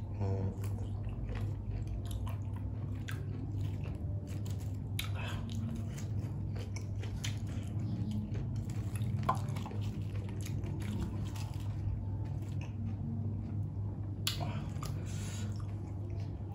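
Close-up chewing of a raw shrimp dipped in seafood sauce: wet chewing with many small mouth clicks and smacks, over a steady low hum.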